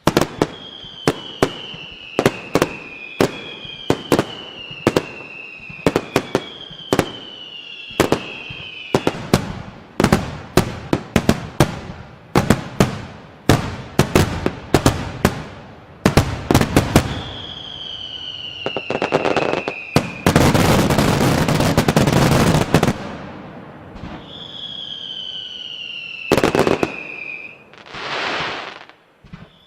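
Fireworks going off: a rapid run of sharp bangs mixed with several whistles that fall in pitch, and a dense stretch of crackling about twenty seconds in.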